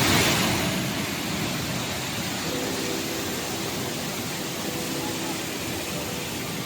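Waterfall rushing: a steady, dense noise of falling water, with faint voices under it from about two and a half seconds in.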